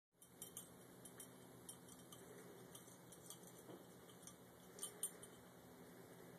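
Bengal and Singapura cats eating from a dish: faint, scattered small clicks and clinks, the two loudest close together about five seconds in.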